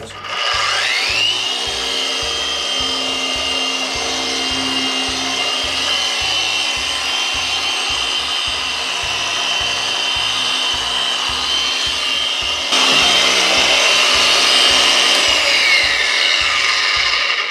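Adam's Swirl Killer Mini polisher running with a foam pad on a porcelain toilet bowl, buffing heavy correcting compound into a hard-water ring. Its motor whine rises as it spins up in the first second, gets louder about two-thirds of the way through, and falls away as it winds down near the end.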